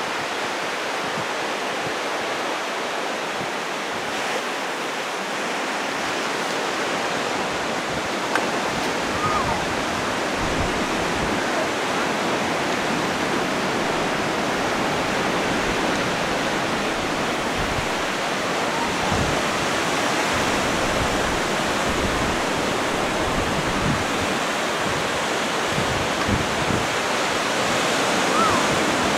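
Steady, even wash of sea surf on a sandy beach.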